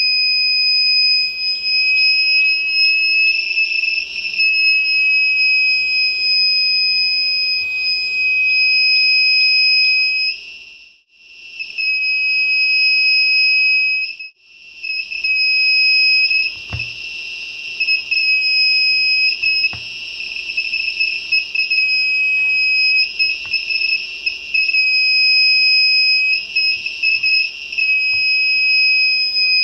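Electronic buzzer in an ultrasonic-sensor circuit sounding a steady high-pitched tone while an object is held in front of the sensor, which signals that the object has been detected. The tone cuts out twice, around 11 and 14 seconds in, and grows louder and harsher in several stretches. A soft knock comes about 17 seconds in.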